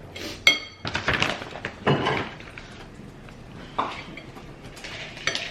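Fork or other metal utensil clinking and scraping against a dish of spaghetti. There is one sharp ringing clink about half a second in, followed by a few softer knocks and scrapes.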